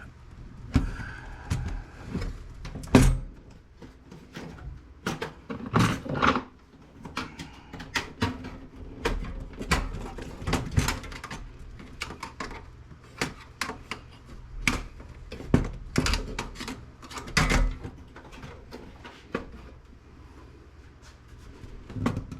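Steel desktop computer case and its power supply being handled and worked at to free the supply: irregular metal clicks, knocks and rattles, some sharper knocks scattered through.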